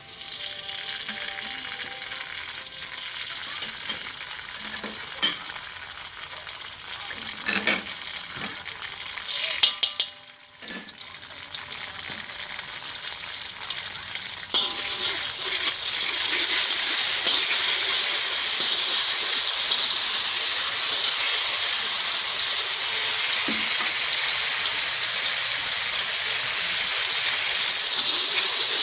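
Onions and a chilli–oyster sauce mixture frying in hot oil in a pan, sizzling while being stirred, with a utensil scraping and knocking against the pan now and then. About fifteen seconds in the sizzle turns into a louder, steady hiss.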